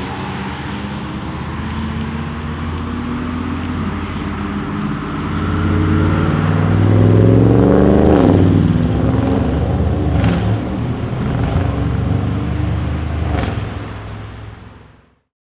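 Audi RS6 C8's twin-turbo V8 on a catless, OPF-deleted aftermarket exhaust: a deep engine rumble that swells about seven seconds in, its pitch rising and then dropping, followed by a few sharp exhaust crackles. The sound fades out near the end.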